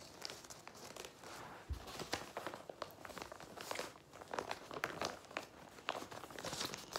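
Sheet of paper being folded in half and creased by hand: soft crinkling with scattered sharp crackles.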